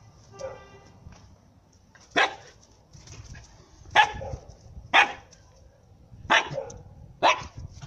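Husky barking: five short, sharp barks about a second apart.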